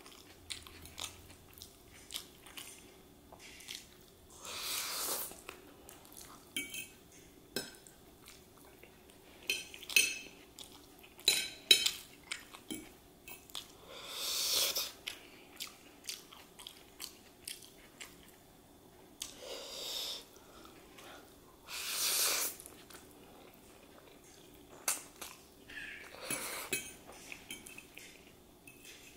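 Eating chow mein noodles with a metal fork: about five noisy slurps of about a second each, with chewing and sharp clicks of the fork against the plate between them.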